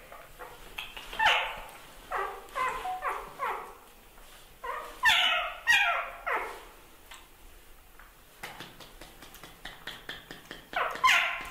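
A young dog yelping and whining in short cries that fall in pitch, in several bursts, while play-wrestling. The loudest cries come about five seconds in and again near the end, and faint scuffling clicks fall in between.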